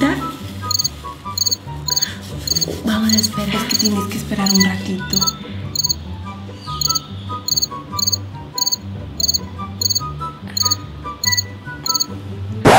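Crickets chirping in an even rhythm, about two to three chirps a second, over quiet background music with a repeating low bass line and plucked notes.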